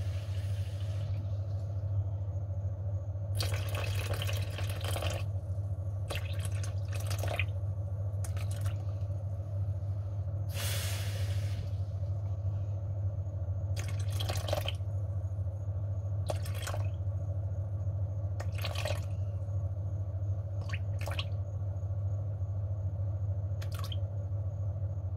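Water poured in short separate splashes from a small bowl into a plastic mixing bowl, about ten pours of up to a second and a half each, over a steady low hum.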